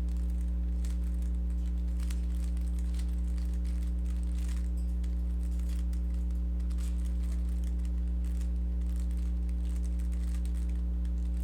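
A steady low electrical hum runs under faint, scattered clicking and clacking of a speedcube's layers being turned.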